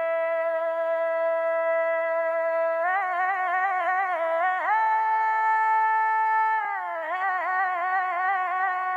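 Music: a single melodic line that holds one steady note for about three seconds, then wavers in ornamented turns, steps up to a higher held note near the middle, and wavers back down to the first note.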